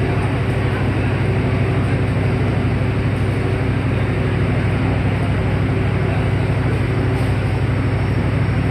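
Diesel engine of a CC201 diesel-electric locomotive running steadily, a low, even drone.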